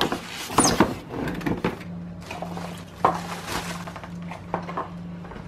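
Cardboard box and packaging being handled as a boxed electric griddle is unpacked: several sharp knocks and rustles in the first two seconds, then a single click about three seconds in. A low steady hum runs underneath.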